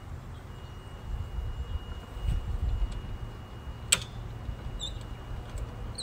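Beehive lift being handled and rocked back upright with a loaded hive on it: low rumbling movement noise, then one sharp click about four seconds in.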